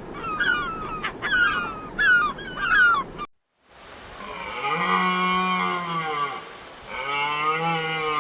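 A run of short, high, falling animal calls, about two a second, ends abruptly a little over three seconds in. After a brief gap, a cow moos twice: two long, deep calls that rise and fall in pitch.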